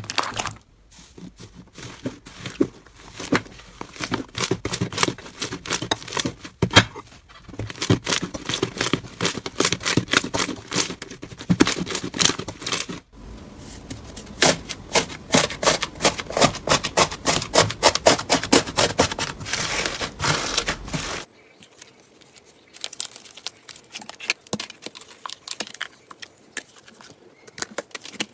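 Slime being squeezed and poked by hand, giving rapid sharp clicks and crackles as air pockets pop. About twenty seconds in the clicking thins out to sparser, quieter pops.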